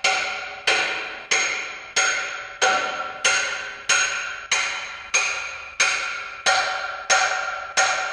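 Hammer blows driving a steel socket onto a nut on a disc harrow gang, struck steadily about one and a half times a second, each blow ringing out metallically before the next.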